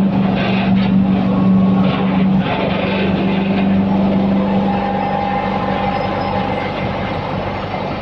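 MACREAT LDBX2116 drum wood chipper running loudly and steadily. A strong low hum stops about two and a half seconds in, and the machine carries on a little quieter.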